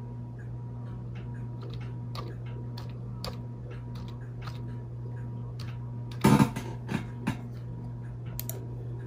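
Laptop keyboard keys being tapped one at a time, irregular clicks as a Wi-Fi network password is typed in, with a louder cluster of knocks about six seconds in. A steady low hum runs underneath.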